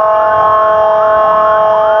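Electronic emergency siren sounding loudly: a steady held tone with quick rising whoops repeating about three times a second over it.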